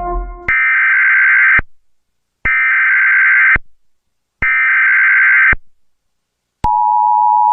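Emergency Alert System–style warning tones: three buzzing data bursts, each about a second long and about two seconds apart, then a steady two-tone attention signal starting near the end. A held tone cuts off just before the first burst.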